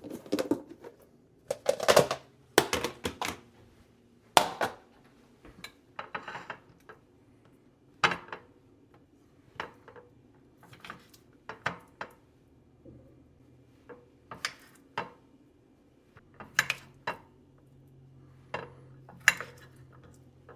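Irregular clinks and taps of a plate, knife and plastic microwave steamer being handled as bite-sized raw chicken pieces are loaded onto the steamer rack.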